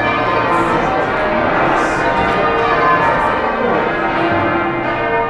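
A ring of heavy church tower bells being rung in changes, strokes following one another in a steady sequence, each bell's tone still sounding under the next strokes.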